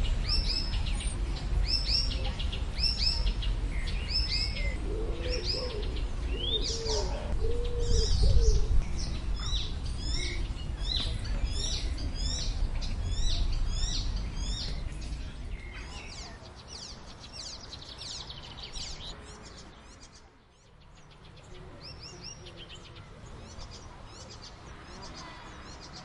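Icterine warbler singing: a fast, varied stream of chirps, whistles and repeated short phrases. Under the first half is a low rumble that fades after about fifteen seconds.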